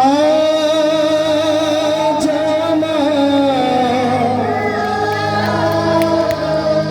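A live devotional bhajan begins: a melody in long, bending held notes starts sharply and runs over a steady accompaniment.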